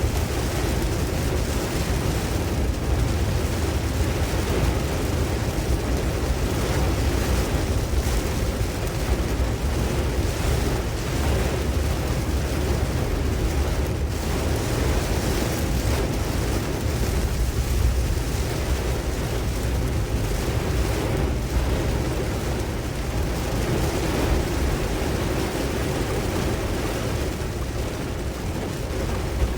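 Tropical-storm wind blowing across the microphone: a steady rushing noise with a heavy low rumble that swells and eases without stopping.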